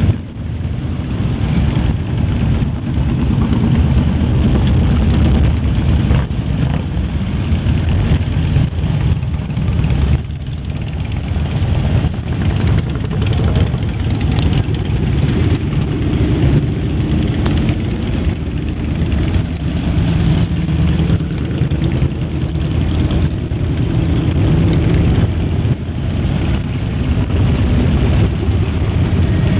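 Many large cruiser and touring motorcycles passing slowly one after another in a procession, their engines running in a steady, loud, low overlapping drone.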